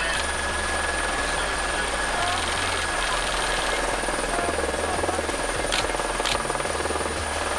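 Helicopter running steadily in flight, with a dense, even engine and rotor noise. Two short clicks sound about two-thirds of the way through.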